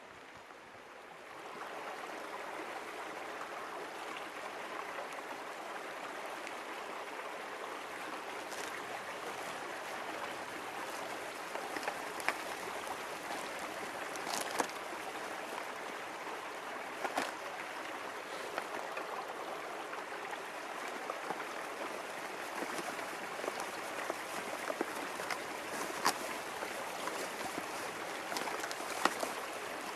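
River water flowing in a steady rush, rising in about a second in, with scattered sharp ticks over it.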